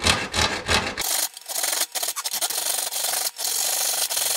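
Hand hacksaw cutting through aluminium ladder stock: a run of rasping back-and-forth strokes, about two a second, each broken by a short gap.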